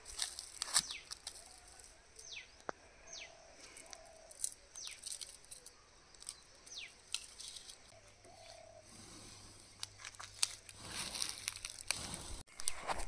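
Dry twigs and leaves crackling, snapping and rustling as a small wood fire is laid and lit between cinder blocks, with many sharp clicks. A bird gives short falling chirps over it, and a louder low rushing noise comes in near the end.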